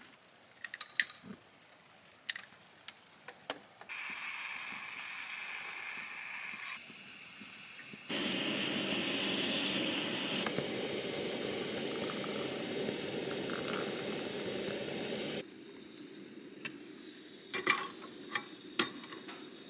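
A few sharp clicks and taps as a single-burner camp stove is handled, then the lit stove burning with a steady hissing rush that stays even for several seconds, and a few more clicks near the end.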